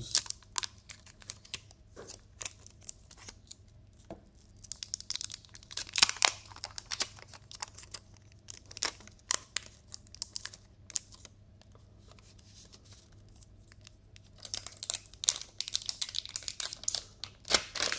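Protective plastic film being peeled off a new smartphone's screen and back: crackling, crinkling tearing in bursts, busiest about five to seven seconds in and over the last few seconds, with a quieter stretch between.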